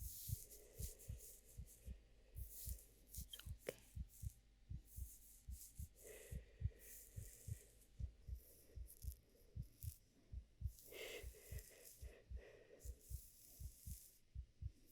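Human heartbeat, quiet and steady: a regular rhythm of soft, low, paired thumps. Soft intermittent higher noise comes and goes over it.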